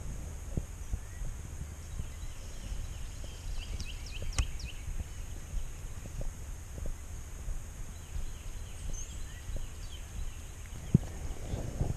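Wild turkey gobbler gobbling faintly, one quick rattling burst about four seconds in, over a steady low rumble on the body-worn microphone.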